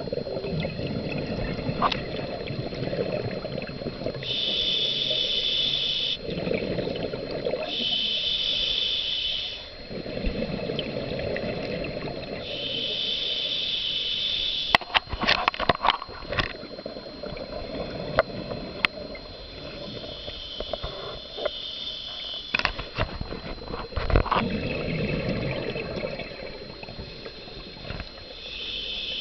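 Scuba diver breathing through a regulator underwater: a hissing inhale through the demand valve alternates with a rumbling, bubbling exhale, one breath every few seconds. Several sharp clicks and knocks come about halfway through and again later.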